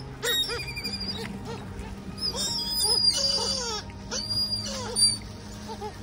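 Gulls calling again and again in short arched calls, the loudest about five seconds in, over background music of held tones.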